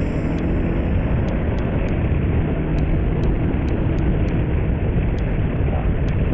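Steady rush of wind over the microphone of a motorcycle moving at road speed, with the engine running underneath.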